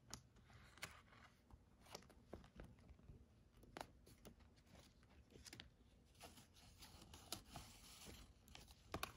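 Faint rustling and crinkling of a paper ten-dollar bill and a cash envelope being handled as the bill is tucked in, with scattered soft taps and clicks.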